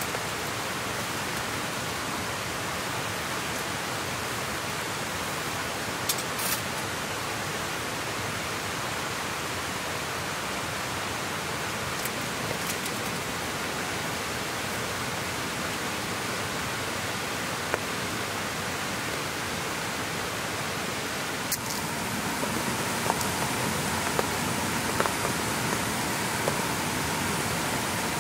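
Steady rain falling, a continuous hiss with a few sharp ticks of drops. About two-thirds of the way in the sound changes, with a faint steady tone joining the rain and the drop ticks coming more often.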